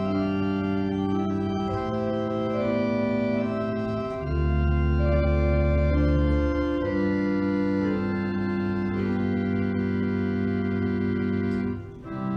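Organ playing slow, sustained chords, with a low bass note changing every few seconds beneath held upper notes; a short break between phrases near the end.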